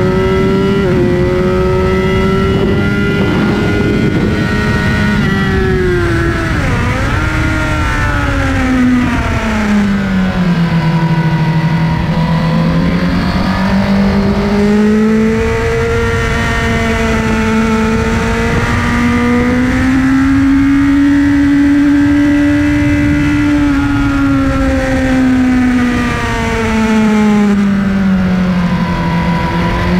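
Sport motorcycle engine running hard at high revs, heard onboard at speed, its pitch falling and rising with the throttle through a run of corners, with a quick sharp dip about seven seconds in. A steady low rush of wind and road noise lies under it.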